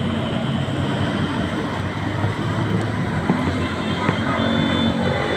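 Street traffic on a wet road: vehicle engines running, with a steady hiss over them.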